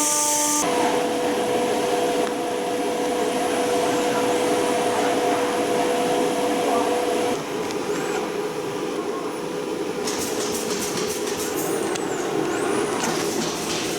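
CNC router spindle and cutter milling aluminum: a steady whine over a hissing cutting noise that changes abruptly about half a second in and again around seven seconds in, with a few sharp clicks near the end.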